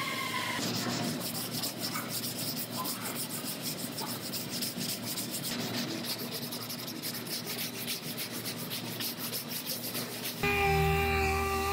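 Hand sanding on car body filler: repeated back-and-forth scratching strokes, several a second. Near the end a power tool starts with a steady, louder whine.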